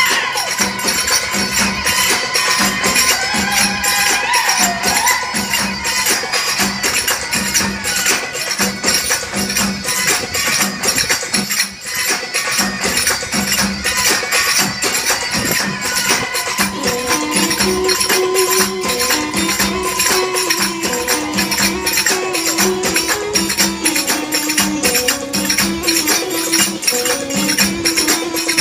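Belly dance music with steady jingling metallic percussion and a winding melody that moves into a lower register a little past halfway.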